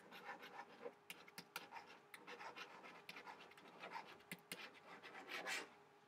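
Faint scratching and tapping of a stylus on a pen tablet as words are handwritten, in quick irregular strokes that stop shortly before the end.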